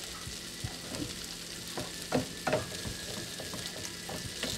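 Chopped mango and pineapple simmering and sizzling in a frying pan as the sauce cooks down, while a spatula stirs through it, with a few louder scrapes and knocks against the pan about two seconds in.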